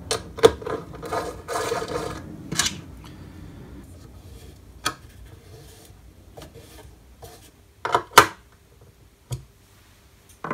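Handling noise from fitting a stepper motor to its 3D-printed bracket: scattered clicks and taps of small screws, metal parts and an Allen key, with some rubbing in the first couple of seconds. Two sharp knocks about eight seconds in are the loudest.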